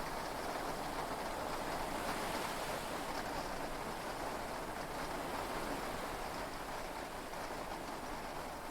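Steady rush of heavy rain and sea waves heard from inside a yacht's cabin, with no thunderclap.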